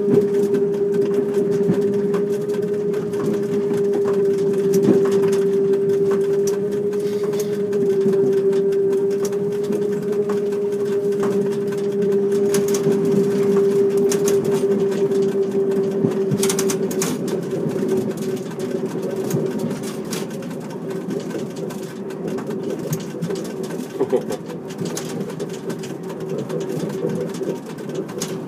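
Train Jaune electric narrow-gauge train running, with a steady motor hum and scattered clicks and rattles from the moving car. The hum fades after about seventeen seconds, leaving the rattling.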